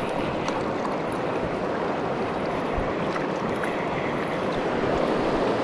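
River water rushing steadily, a constant wash of noise that swells slightly near the end.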